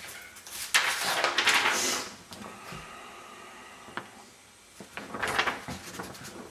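Paper and plastic packing rustling and crinkling as a printed letter is picked up and lifted, in two loud bursts about a second in and again near the end, with a short sharp click between them.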